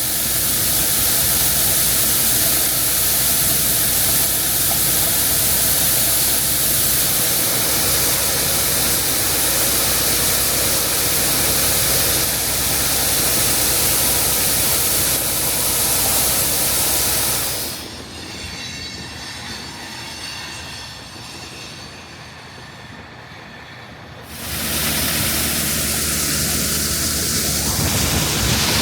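Heavy harvest machinery running with a steady engine drone and a hiss of mechanical noise. About two-thirds of the way through it drops abruptly to a much quieter level for about six seconds, then comes back just as loud.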